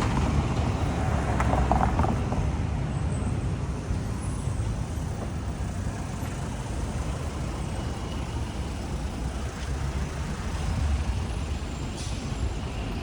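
Road traffic: a steady low rumble of passing motor vehicles, a little louder in the first couple of seconds.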